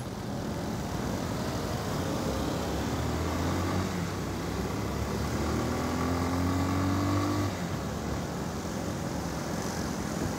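Motorcycle engine pulling away and accelerating, its pitch climbing steadily for a few seconds and then dropping off sharply about seven and a half seconds in, over wind and street traffic noise.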